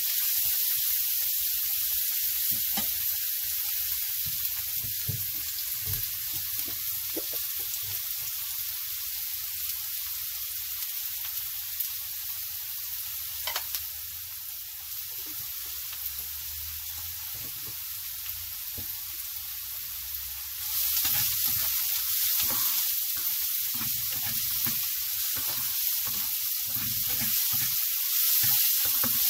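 Chopped onions and mustard seeds sizzling steadily in hot oil in a nonstick frying pan, with a plastic spatula stirring and scraping them around the pan. The sizzle gets louder about two-thirds of the way through.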